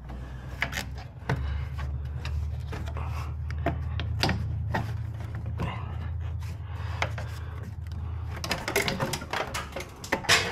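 Clicks, knocks and rubbing as a black cold-air-intake tube and its rubber coupler are pushed and worked into place by hand in an engine bay. A steady low hum starts about a second in and stops near the end.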